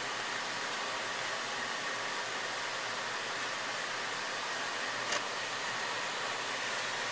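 Steady fan-like hiss with a faint high whine from the running RF bar welder, and one sharp click about five seconds in.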